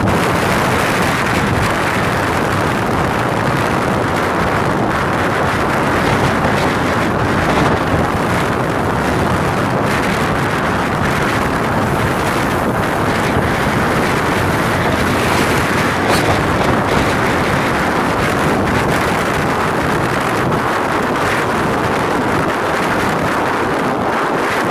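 Strong wind blowing across the microphone, a loud steady rush with brief gusts.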